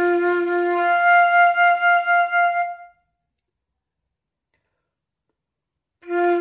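Flute playing a long low F with a slight pulse, then moving up to the F an octave above about a second in. The note stops near the middle, and after about three seconds of silence the low F starts again near the end.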